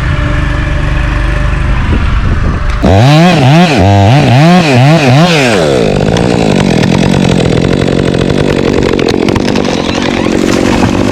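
Chainsaw engine: after a steady low drone, the throttle is blipped about five times from about three seconds in, the pitch rising and falling with each. From about six seconds in it runs steadily at high revs.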